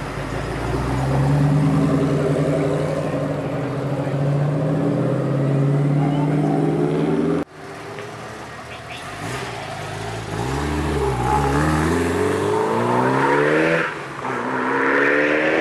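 A Ford Mustang's V8 pulling away, its note rising slowly. Then a Mitsubishi Lancer Evolution VI's turbocharged four-cylinder is blipped several times and accelerates, pitch climbing. Near the end another car accelerates hard, its pitch dropping once and climbing again.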